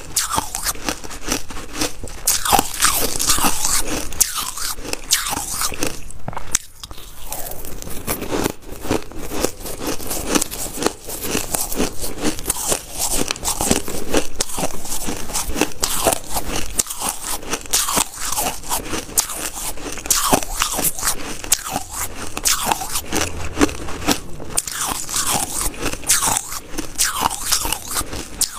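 Crushed ice being bitten and chewed right at a close microphone: a dense, continuous run of crisp crunches, with a short lull about six and a half seconds in.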